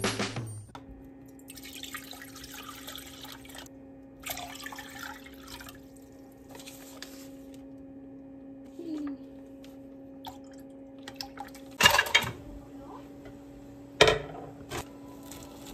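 Quiet kitchen sounds over a steady low electrical hum: a few short hissing stretches in the first several seconds, then two sharp knocks about twelve and fourteen seconds in.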